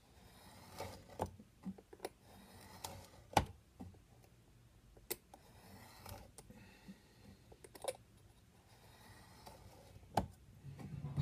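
Small hand tool working along a thin walnut plank while tapering it: faint scraping strokes broken by scattered sharp clicks and taps as the tools and a steel rule are handled, the loudest tap about three and a half seconds in and another just after ten seconds.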